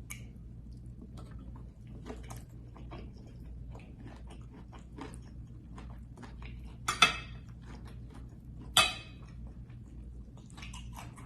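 Close-up eating sounds: scattered small clicks of cutlery on dishes and chewing, with two louder sharp crunches or clinks about seven and nine seconds in, over a steady low hum.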